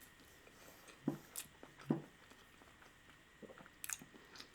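Faint chewing mouth sounds: a few soft smacks and clicks.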